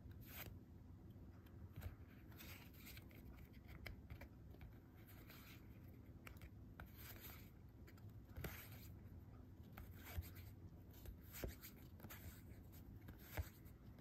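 Magic: The Gathering cards being flipped through by hand, each card sliding off the deck onto a pile: faint, irregular card-on-card swishes with a few soft clicks, over a faint steady low hum.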